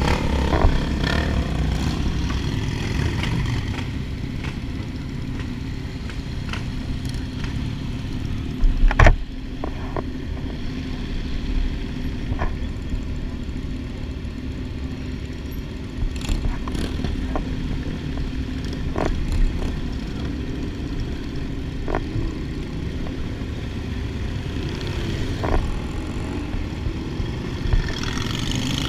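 Motorcycle engines idling and pulling away in a group of sport bikes, a steady low rumble with a few sharp clicks and one louder knock about nine seconds in.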